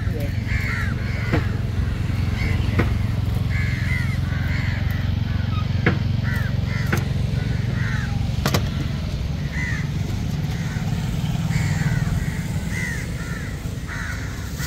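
Crows cawing again and again, many short calls throughout, over a steady low rumble, with a few sharp knocks.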